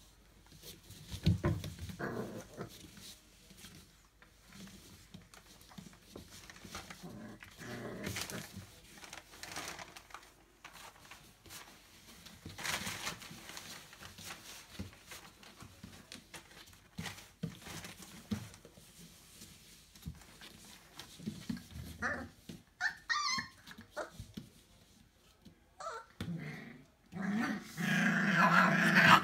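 Four-week-old Entlebucher Mountain Dog puppies vocalizing in scattered short bursts, with high squeaky calls about three-quarters of the way through and a longer, louder stretch near the end.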